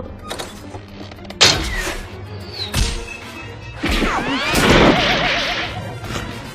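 Orchestral film score mixed with cartoon sound effects: a sharp hit about a second and a half in and another near three seconds, then a loud crash with gliding whistle-like tones and a wobbling, warbling tone.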